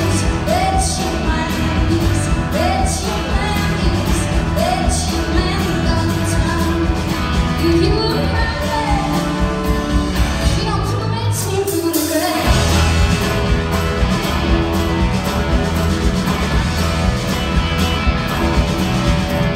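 Live rock band playing: a woman singing lead over electric guitars, bass guitar and a drum kit. About twelve seconds in the low end drops out for a moment, then the full band comes back in.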